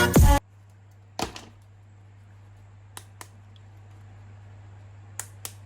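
A few light, sharp clicks and taps over a low steady hum, like a plastic action figure being handled: one about a second in, a close pair around three seconds, and another pair near the end.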